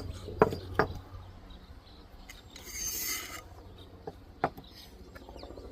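Target rack parts being handled: a few sharp knocks and clicks, and a short scraping rub about three seconds in.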